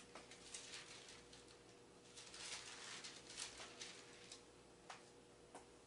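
Faint rustling of thin Bible pages being turned and handled, in short patches, with a few small clicks near the end over a steady low hum.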